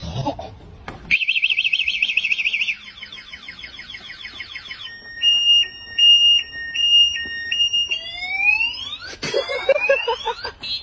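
Electronic alarm siren cycling through its tone patterns: a fast warble, then sweeps, then a regular two-tone high-low alternation, then rising whoops and pulsed tones near the end.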